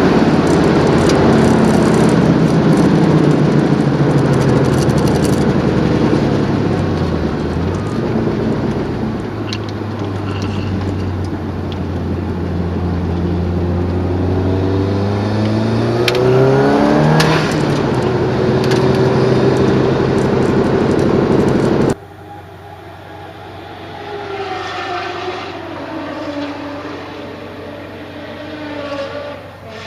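Car engine heard from on board at track speed, its note falling and climbing with throttle and gear changes, including one sharp rise in revs about halfway through. About two-thirds of the way in the sound drops suddenly to a much quieter engine note.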